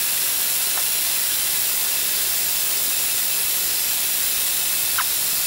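Metal lathe running, turning a cone point on the end of a small steel screw: a steady hiss, with two short chirps about a second in and near the end.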